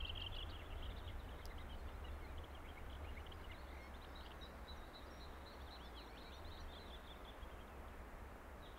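Small birds singing, a long run of quick chirps and trills, over a steady low wind rumble.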